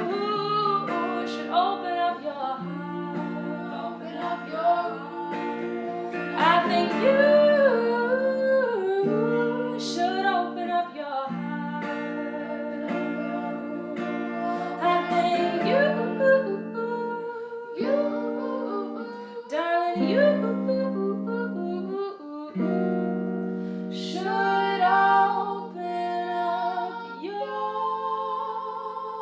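A woman singing over acoustic guitar, her voice holding and bending long notes above sustained guitar chords.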